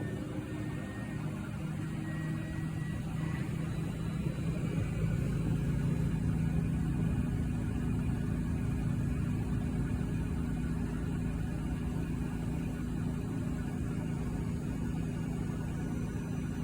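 Miele washing machine on a 1600 rpm spin cycle: a steady low hum from the spinning drum and motor. It builds gently over the first few seconds as the drum speeds up, with a faint rising motor whine, then holds steady at speed.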